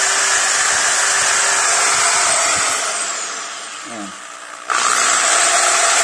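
Corded electric drill running under load as it bores a hole into a fan's neck pivot. It eases off about two and a half seconds in and starts again sharply near the end.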